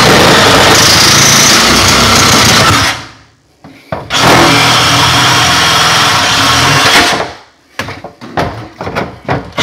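Ryobi One+ cordless reciprocating saw cutting through a white plastic drain pipe. It runs for about three seconds, stops for about a second, runs again for about three seconds, and ends in a few short, broken bursts.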